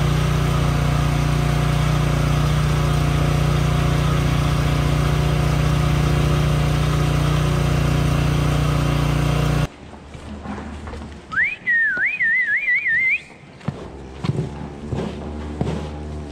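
Motorised calf feeding cart's motor running with a loud, steady hum, cutting off abruptly a little over halfway through. Then a person whistles a short, wavering tune for about two seconds, among scattered knocks and clatter.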